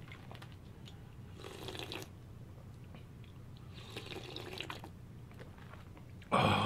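Slurping spicy seafood jjamppong broth straight from a plastic takeout bowl: two long sips, then a loud breathy 'ah' near the end.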